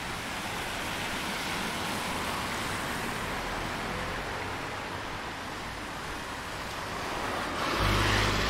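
Road traffic on wet streets: a steady hiss of tyres on wet tarmac, and near the end a vehicle passing close with a low engine hum.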